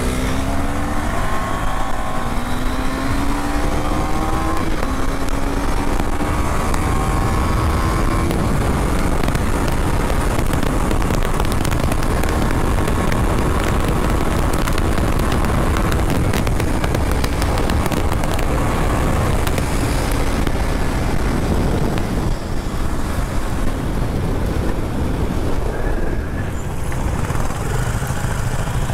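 KTM Duke 390's single-cylinder engine under hard acceleration. Its pitch climbs in steps with each upshift over the first several seconds, then holds at high speed under heavy wind rush on the microphone. Near the end the engine note falls away as the bike slows right down.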